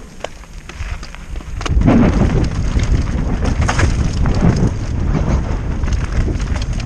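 Downhill mountain bike riding fast over a rocky dirt trail: wind buffets the camera microphone over tyre rumble and rattling knocks from the bike. The sound grows much louder about two seconds in.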